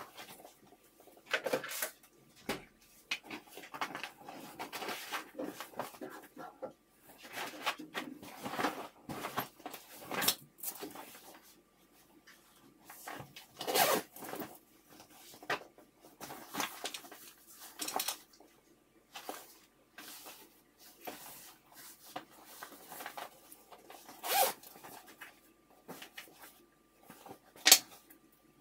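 Zippered canvas tote bag being handled: fabric rustling, a zipper pulled along the top opening, and scattered sharp knocks. The loudest knock comes near the end as a plastic water bottle goes in.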